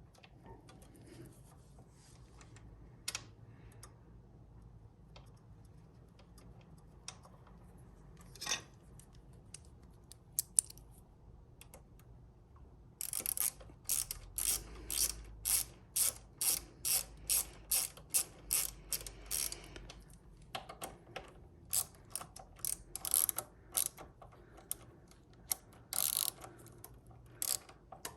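Ratchet wrench turning a bolt on a bicycle disc-brake caliper, clicking in quick back-and-forth strokes about twice a second from about halfway through. Before that come softer scattered clicks of tools being handled.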